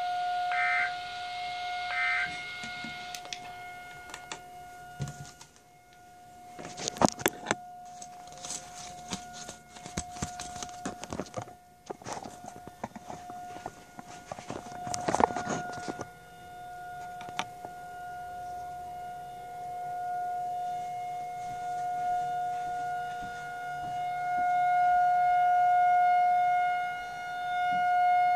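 Federal Signal 2001-SRN outdoor tornado siren sounding a steady single tone, its loudness swelling and fading as it rotates. Near the start, a weather radio sends the last of its short, warbling Emergency Alert System data bursts, the end-of-message code closing the test warning. Between about six and sixteen seconds in, a run of sharp clicks and knocks comes in over the siren.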